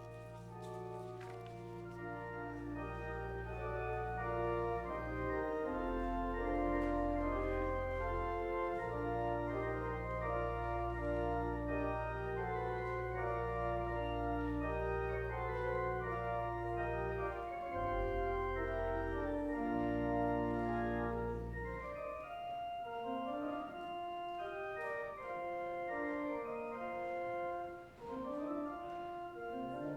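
Organ playing the postlude: sustained chords over long-held deep bass notes. The bass drops out about two-thirds of the way through and the music carries on in the higher notes alone.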